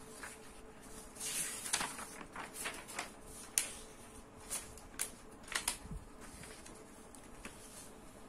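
Paper being handled on a desk: a rustle of sheets about a second in, then a few sharp ticks and taps spread over the next few seconds.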